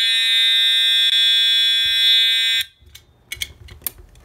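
Edwards 757-7A-T Integrity fire alarm horn sounding a continuous steady tone, set to its continuous setting and incredibly loud even on low volume. It cuts off abruptly about two and a half seconds in, followed by a few clicks and knocks as the devices are handled.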